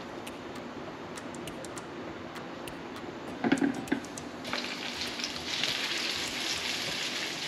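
Food frying in a hot pan: a faint steady hiss, a brief clatter about three and a half seconds in, then a loud, dense sizzle from about halfway through.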